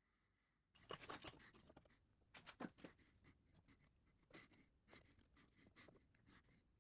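Quiet scratching of marking tools on an ash board as dovetails are laid out, in short, irregular strokes with small clicks, starting about a second in.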